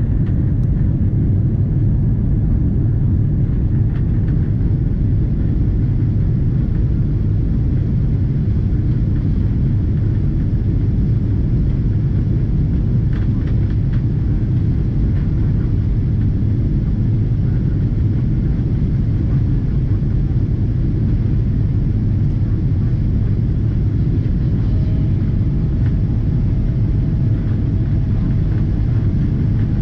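Steady low rumble of a Boeing 777-200ER's engines and airflow heard inside the passenger cabin, with a faint steady tone joining in near the end.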